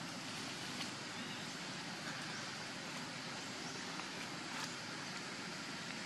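Steady outdoor background noise, an even hiss with no clear pitch, and two faint clicks.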